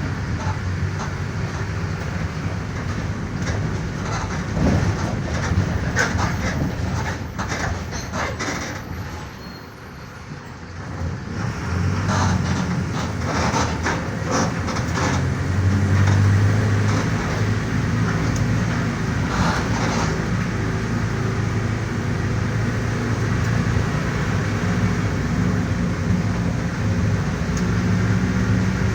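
Mercedes-Benz OF-1418 city bus running, its six-cylinder diesel engine steady under way. About ten seconds in the engine quietens briefly, then picks up again and runs steadily. There are clattering rattles from the bus body in the first part.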